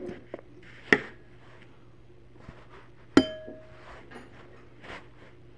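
Metal chopsticks clinking against a ceramic bowl while lifting noodles: a sharp tap about a second in and a second one about three seconds in that rings briefly.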